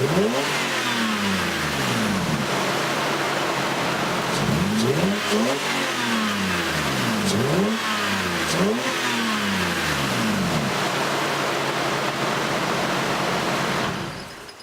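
Lexus IS300's 3.0-litre inline-six (2JZ-GE) blipped in neutral for an intake sound test, revving up and falling back to idle about four times. The sound cuts off near the end.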